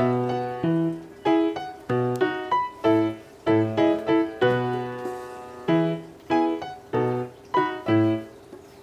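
Background piano music: a light tune of struck chords that ring and fade, played at an even, bouncy pace.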